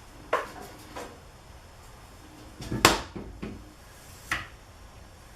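Scattered knocks and clatter of tools and materials being picked up and set down on a work surface, with one louder knock about three seconds in.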